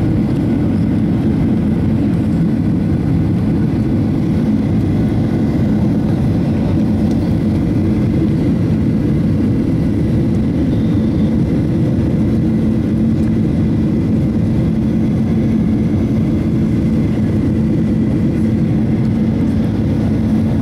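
Jet airliner cabin noise on approach to land, heard from a window seat beside the engine: a steady deep rumble of engines and airflow with a low hum running through it.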